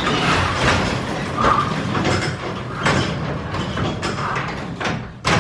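Broken garage door being shifted by hand, rattling and scraping, with several knocks and a sharp bang just before the end.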